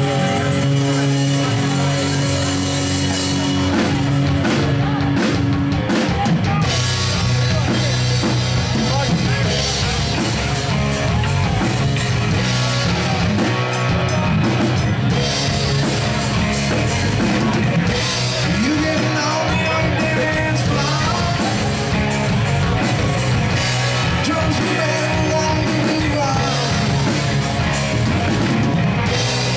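Rock band playing: drum kit and electric guitar, with a singer's voice coming in after the first few seconds.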